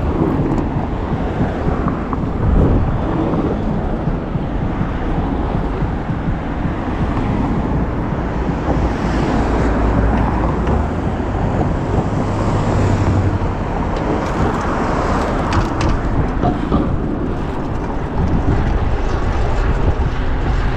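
Steady road and traffic noise heard from a bicycle riding through city streets, a dense, deep rumble without pauses.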